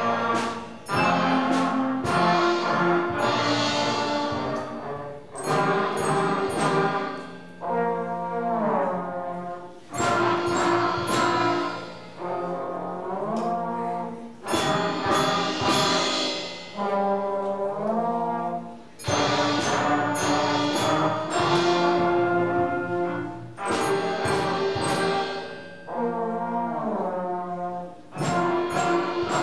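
A student concert band with trombones and woodwinds playing, the trombones sliding up and down in a glissando about every nine seconds, over sharp drum and cymbal hits.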